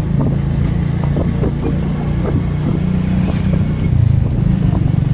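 Motorcycle engine running steadily at low road speed, with irregular short knocks and rattles over the rough lane.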